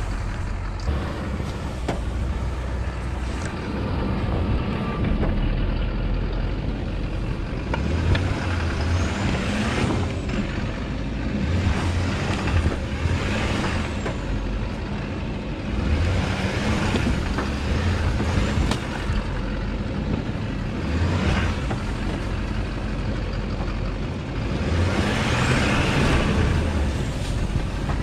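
Chevrolet 2500HD pickup's diesel engine running under load, its tyres churning through slush and snow. A faint high turbo whistle rises and falls a few times.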